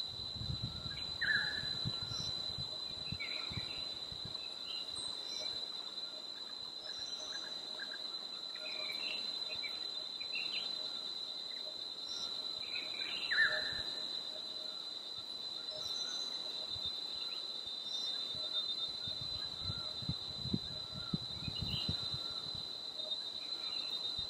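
Steady high-pitched insect drone, with scattered short bird chirps over it; the two clearest calls come about a second in and again about halfway through.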